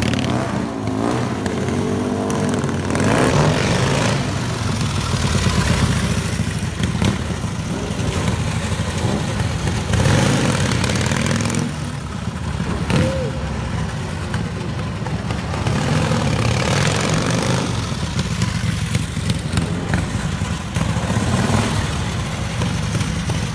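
Motorcycle engines running and revving as bikes ride around, with the revs rising and falling in the first few seconds as a rider lifts the front wheel in a wheelie.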